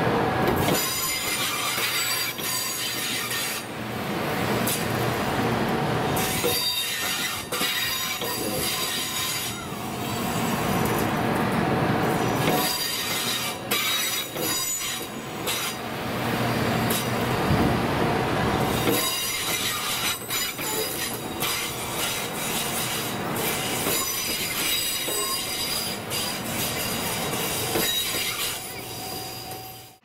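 Class 923 Doctor Yellow Shinkansen inspection train passing along the track, its wheels squealing on the rails. The sound swells and fades every few seconds.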